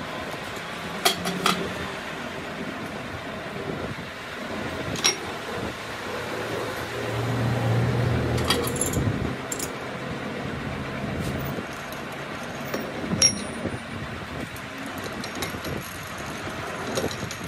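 A few sharp metal clinks as a steel gear and splined shaft are handled and fitted together by hand, over steady workshop noise; a low hum swells and fades around the middle.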